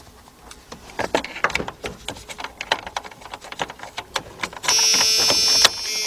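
Rapid, irregular clicking from the 3.9 L V6's starter circuit as the key is turned, with no cranking: the click-no-crank no-start that the mechanic traces to a bad ground wire. Near the end a loud steady electrical buzz sets in.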